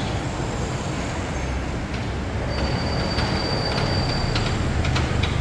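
Street traffic: a steady low rumble of passing vehicles, with a thin high squeal held for about two seconds midway.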